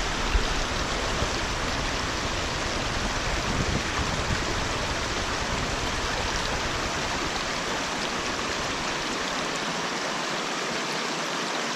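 Stream water rushing steadily, with a few low bumps in the first few seconds.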